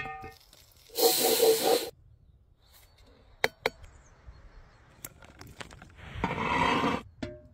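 Cooking sounds at a cast-iron pan over a campfire. A rasping, scraping noise lasts about a second, a few sharp clicks follow, and then a second rasping noise comes near the end.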